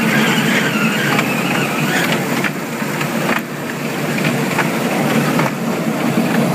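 Mall kids' ride-on train running along its track: a steady rolling, mechanical noise with a few brief clicks.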